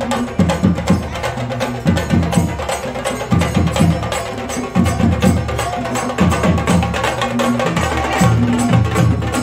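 Chenda drum ensemble playing a fast, dense rhythm of sharp stick strokes over a recurring low beat.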